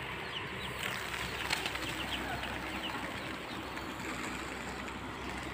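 Grain pouring onto a plastic tarp in a steady hissing stream, with a few faint bird chirps over it.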